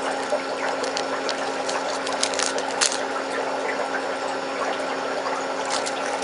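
Small plastic baggies of nail spangles crinkling and crackling in short bursts as they are handled, over a steady background hiss and hum.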